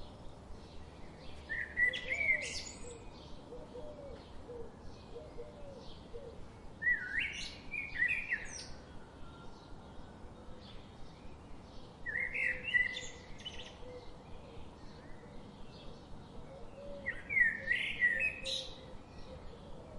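Birds singing: one bird repeats a loud, complex song phrase four times, about every five seconds, each phrase lasting a second or so. Faint short chirps keep up steadily in the background between the phrases.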